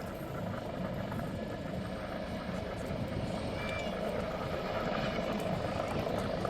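Helicopter running steadily, its rotor and engine noise slowly growing louder.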